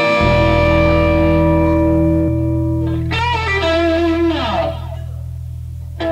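Rock band's distorted electric guitars holding sustained notes over a steady bass note, with falling pitch slides about four seconds in. The sound thins out and drops in level near five seconds, then the full band comes back in at the end.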